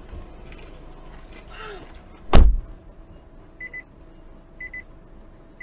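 A single heavy thump of a car door being shut, followed by a high electronic double beep repeating about once a second, like a car's warning chime.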